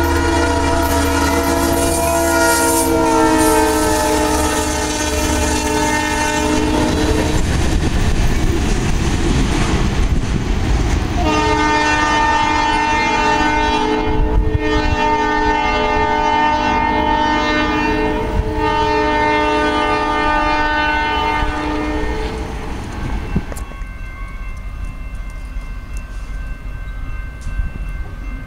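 Diesel locomotive air horn blowing a long chord that drops in pitch about three seconds in as the locomotive passes, over the rumble and clack of rail cars on the track. After a stretch of train noise, the horn sounds again in three long blasts in a row. Near the end the horn stops and a quieter steady ringing from the grade crossing's warning bell carries on.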